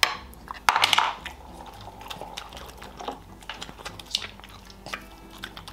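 Close-miked wet chewing and mouth clicks from eating syrniki with condensed milk, with one louder burst about a second in.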